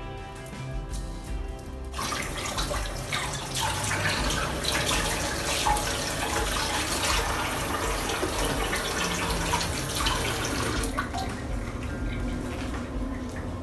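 Soft background music, then water running and splashing, as from a kitchen tap into a sink, for about nine seconds.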